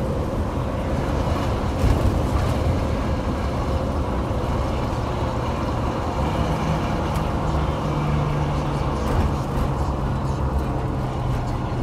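Turbocharged Detroit Diesel engine of an old bus running while driving along a road, heard from inside the cab as a steady low drone with road noise. There is a short knock about two seconds in.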